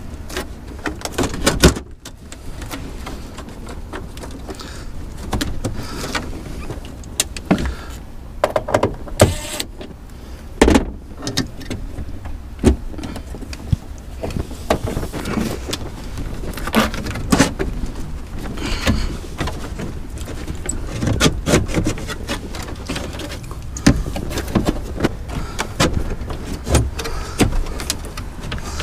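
Irregular clunks, knocks and rattles of the metal top cover of a Ford Escape Hybrid's traction battery pack being tugged and worked by hand, binding and not lifting free while bolts still hold it. A low steady rumble runs underneath.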